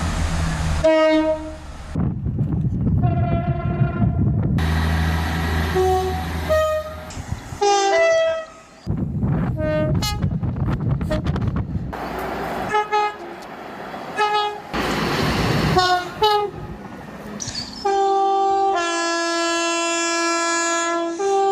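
Locomotive air horns sounding in a string of clips, some short blasts and some longer chords, with the rumble of passing trains between them. Near the end a multi-note horn chord is held for several seconds.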